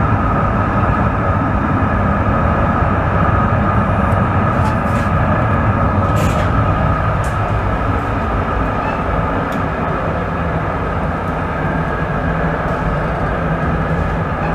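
An old BVB tram running, heard from inside the car: a steady loud rumble of wheels on rails, with a steady high whine and a few sharp clicks along the way.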